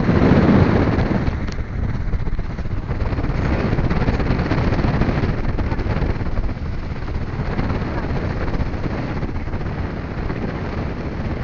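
A vehicle driving along a dirt road: a steady low rumble of engine, tyres and wind buffeting the microphone, loudest in the first second.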